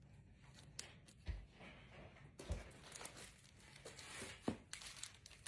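Faint rustling and crinkling of packaging being handled, with a few light knocks and clicks.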